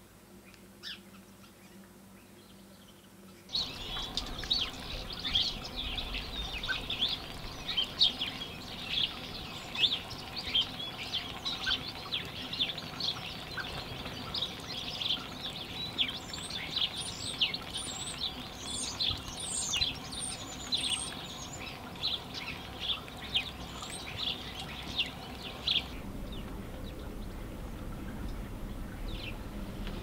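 A dense chorus of small songbirds chirping and twittering, which starts abruptly about three and a half seconds in and cuts off about four seconds before the end. Before and after it there are only a faint chirp or two over a low, steady background hum.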